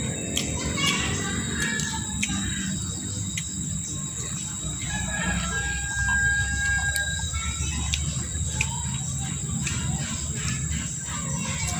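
A rooster crowing once in a long held call about five seconds in, with chickens calling just before it, over a steady high-pitched whine and a few light clicks.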